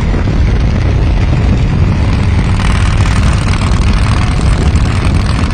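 Chopper motorcycle's V-twin engine running loud and steady as it is ridden at road speed, cutting in suddenly with a dense low rumble.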